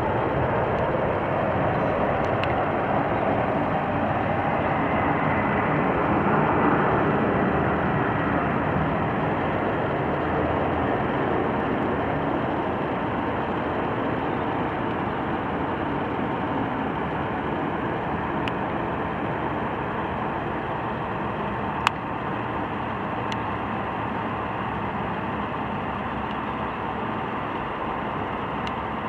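Boeing 777-300ER's twin GE90 turbofan engines heard from the ground as the airliner passes overhead on approach: a steady jet noise that peaks about six seconds in and then slowly fades as it moves away. A single sharp click about 22 seconds in.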